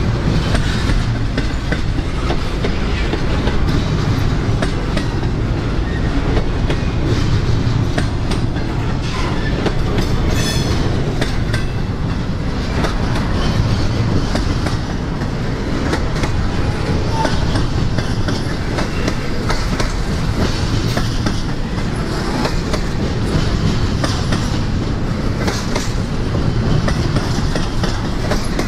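Freight train's container well cars rolling past: a steady rumble of the wheels and trucks, with irregular clicks and clanks of the wheels on the rails.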